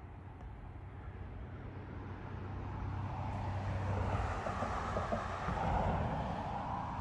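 Engine noise of a passing motor vehicle over a steady low hum, swelling to its loudest about four to six seconds in and easing off near the end.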